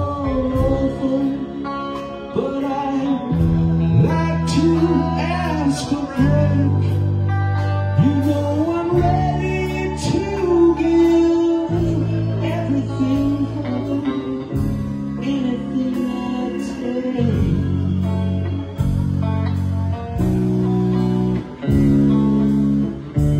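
Live rock band playing a song on electric guitar, bass guitar, drum kit and keyboard, with gliding guitar lines over held bass notes and steady cymbal strokes.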